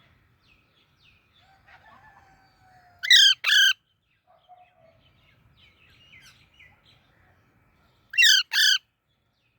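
Baby parrot calling: two loud pairs of harsh, squawking calls, one about three seconds in and one about eight seconds in, with soft little chirps and peeps between them.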